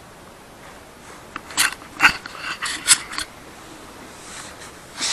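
A dog gnawing and tugging on a knotted cotton rope toy: a quick run of short, crunchy, scratchy sounds in the middle, then a softer rustle near the end.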